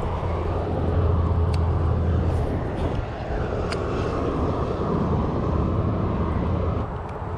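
Steady low rumble of wind on the microphone, with two short sharp clicks about a second and a half and three and a half seconds in.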